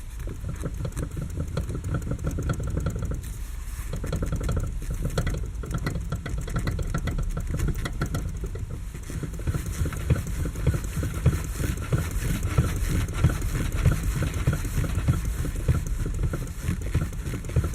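Lada Kalina's steering knocking as the wheel is rocked quickly back and forth: a rapid, irregular string of knocks throughout, from the electric power steering unit and the steering rack, a rack knock that the owner fears means the rack is finished.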